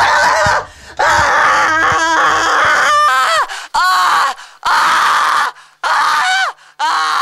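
A teenage boy screaming loudly: one long scream, then a string of shorter screams, about six in all.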